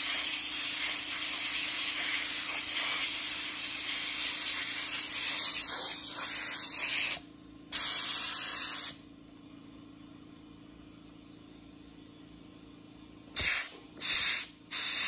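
Compressed-air blow gun hissing as it blasts sawdust out of the carved letters of a wooden sign. There is one long blast of about seven seconds, a second blast of about a second after a short gap, and then, after a pause, three quick short bursts near the end.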